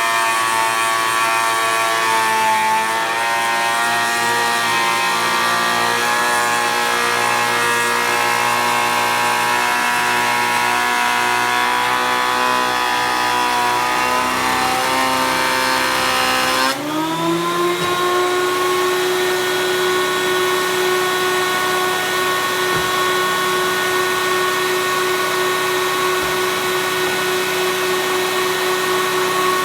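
Porter-Cable 6-inch benchtop jointer running and cutting boards, a loud, high-pitched motor whine over cutterhead noise. The pitch sags under load and shifts abruptly about two-thirds of the way through.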